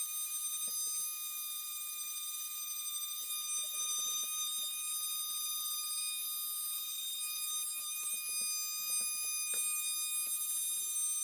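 Red handheld detail sander with a triangular pad running against wood, giving a steady high-pitched whine.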